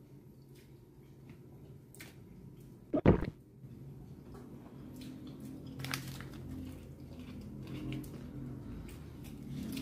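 Paper wrapper being handled and crinkled around a shawarma, with small scattered clicks and crackles, and one loud thump about three seconds in.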